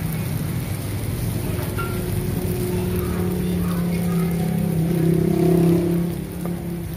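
Vietnamese pancake batter (bánh xèo) sizzling in small pans over gas burners, a steady frying hiss. Under it a motor's engine hum swells from about halfway, is loudest shortly before the end, then eases off.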